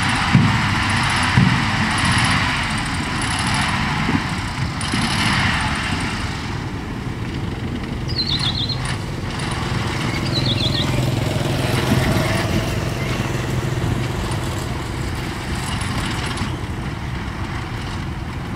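Dump truck's diesel engine running as it holds its bed tipped and the dirt load slides out, with a few knocks in the first second and a half. Two short high chirps sound about 8 and 10 seconds in.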